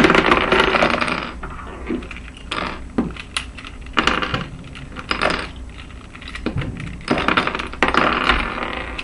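Loose plastic Rubik's Cube pieces clattering and rattling against a tabletop as the cube is broken apart by hand, in several irregular bursts with sharp clicks.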